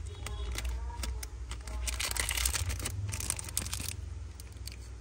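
Handling noise from Zippo lighters and their packaging: scattered small clicks, with a rustling, tearing-like noise from about two seconds in to about four seconds in, over a steady low hum.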